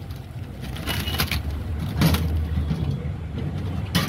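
Crisp fried pakwan flatbreads crackling and crunching as they are pressed and broken by hand on a foil paper plate, a few sharp cracks over a steady low rumble.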